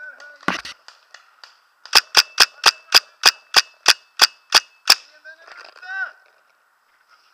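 Paintball marker firing a rapid, even string of about a dozen sharp shots, roughly four a second, after a single thump about half a second in.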